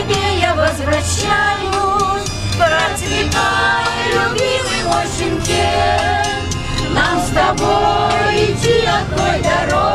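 Group of women singing a Russian song together in chorus, voices wavering with vibrato, over the steady low hum of the minibus they ride in.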